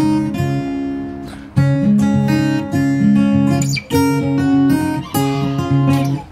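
Background acoustic guitar music, plucked and strummed chords.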